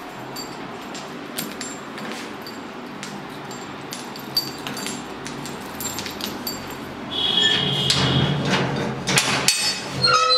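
Keys jingling and clicking against a padlock on a steel grille gate as it is unlocked. About seven seconds in there is a louder scrape with a brief squeak, then several loud metal clanks near the end as the gate's bolt is worked.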